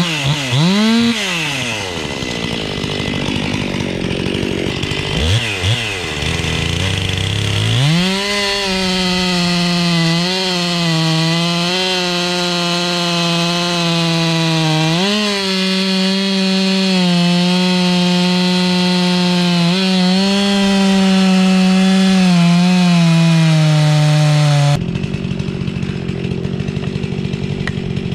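Stihl chainsaw with a 20-inch bar, revved twice, then held at full throttle while cutting through a dead log, its pitch dipping briefly a few times under load. The saw sound cuts off sharply about 25 seconds in, leaving a quieter noisy stretch.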